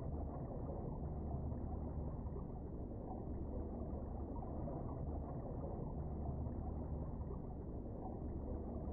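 Steady, dull low rumble of underwater ambience picked up by a submerged camera, with no high tones and no distinct events.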